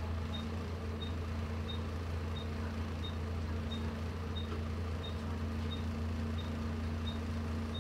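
Volvo B7TL double-decker bus's six-cylinder diesel engine idling steadily while the bus stands at a stop, heard from a seat inside the bus. A faint short high beep repeats about one and a half times a second throughout.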